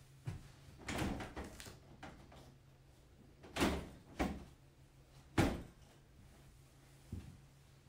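Hard plastic parts of a stackable quail grow-out pen knocking and clattering together as the next layer is fitted onto the stack. There are several separate knocks, the loudest about five seconds in.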